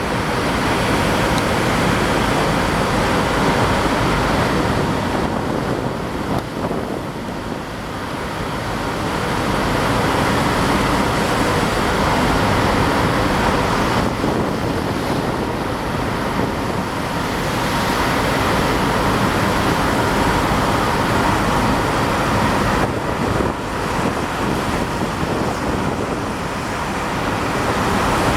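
An Antonov An-2 biplane's nine-cylinder radial engine and propeller running steadily, a loud even drone with a faint steady hum in it.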